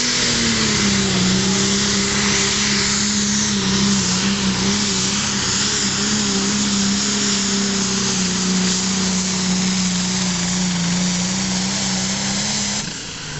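Diesel engine of a John Deere smoker-class pulling tractor under full load, pulling a sled and running hard at a steady high pitch. The note sags slightly just after the start as the load comes on. Shortly before the end the engine drops off as the throttle comes back at the end of the pull.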